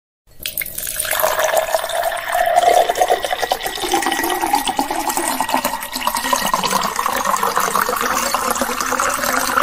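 A drink being poured into a glass: a steady rush of liquid with fine bubbling crackle through it, building up in the first second.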